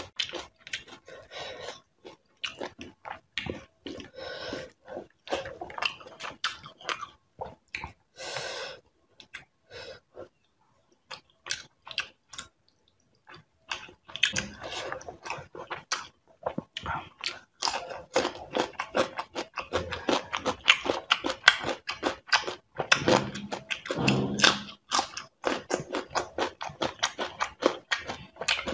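Close-up chewing and mouth clicks of a person eating fish curry: a dense run of short clicks that stops for a few seconds midway, then resumes.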